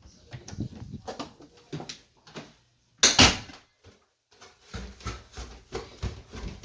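Irregular knocks and clicks, with one loud clatter about three seconds in and dull thuds near the end.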